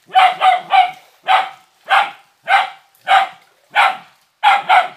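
Hunting dog barking repeatedly at a captured monitor lizard, about two sharp barks a second, a few of them in quick pairs.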